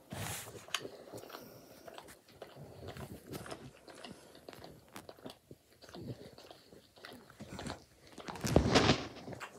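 A dog licking a person's head and hair close up, a run of irregular short licking and smacking sounds, loudest for a moment near the end.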